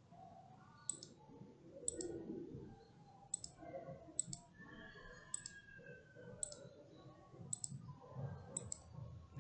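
Faint computer mouse clicks, about one a second, each a quick double snap of press and release, as the paint-bucket tool fills shapes with colour.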